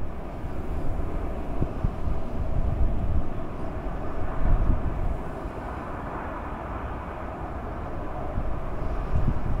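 Steady low outdoor rumble with no bird calls.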